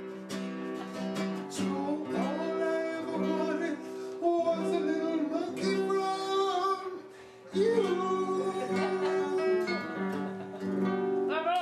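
End-credits song: a voice singing over acoustic guitar accompaniment.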